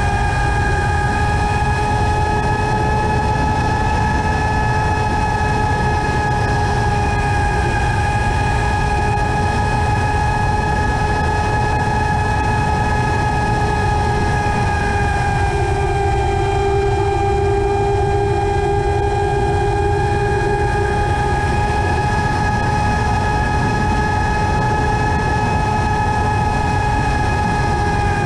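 FPV racing quadcopter's motors and propellers running with a steady high whine, over the rush of wind and prop wash on the onboard microphone.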